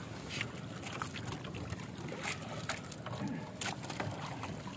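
A monofilament gill net being hauled hand over hand into a wooden outrigger boat: scattered light clicks and taps at irregular intervals as the net and its floats and weights come over the gunwale, with water trickling off the net, over a steady low hum.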